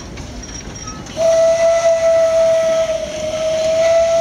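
Steam whistle of an Arthur Koppel narrow-gauge field-railway steam locomotive, blown in one long steady blast that starts about a second in.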